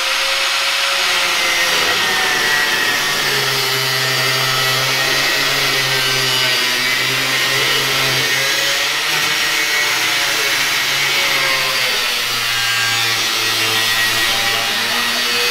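Corded angle grinder with a cut-off disc cutting through a car's sheet-steel floor pan. It runs steadily, its whine sagging and recovering several times as the disc bites into the metal.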